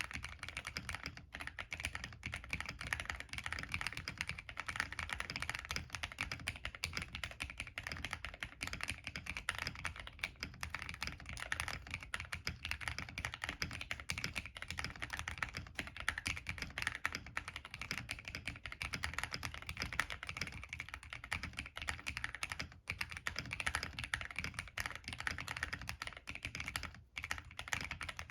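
Continuous fast typing on a plateless MK870 tenkeyless mechanical keyboard with linear NK Cream switches and PBT Cherry-profile keycaps: a dense, steady stream of key clacks.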